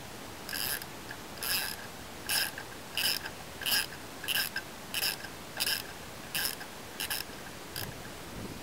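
Hand ratchet wrench turning a wheel lug nut through a socket: its pawl clicks in a short burst on each swing of the handle, about a dozen swings in a row at roughly one and a half a second.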